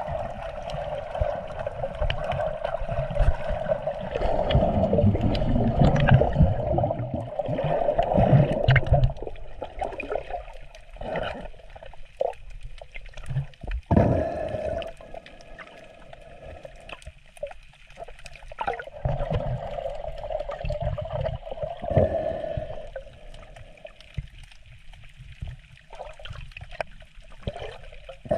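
Water sloshing and gurgling right at the microphone, surging louder and softer, as when snorkelling with the camera at or under the surface.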